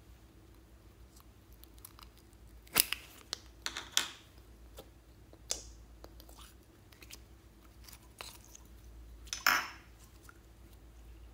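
Hands opening a plastic slime tub and squeezing clear slime out of it: a scatter of sharp crackling clicks, loudest around three to four seconds in and again shortly before the end.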